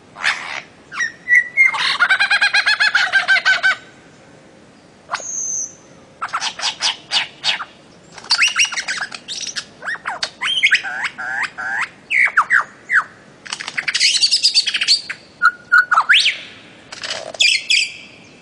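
Birds chirping and calling in quick series of short notes, some sweeping in pitch, with a harsher chattering squawk about two seconds in.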